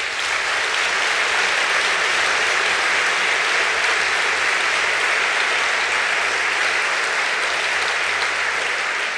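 Audience applauding steadily, a dense even clapping throughout.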